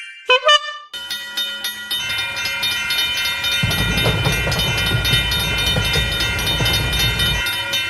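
Train sound effect: a train running past, its low rumble coming in about three and a half seconds in and dropping away shortly before the end, over steady high tones and regular clicking. A few short pitched blips open it.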